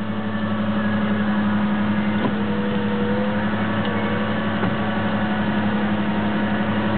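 Ford Ranger's power window motor running, a wavering whine for a couple of seconds from about two seconds in as the door glass lowers. Under it is the steady hum of the idling engine.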